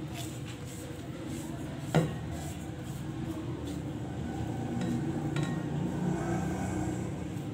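Ground spices being scraped off a ceramic plate into a glass bowl with a spatula: one sharp clink of dishware about two seconds in and a few lighter clicks later, over a low steady hum.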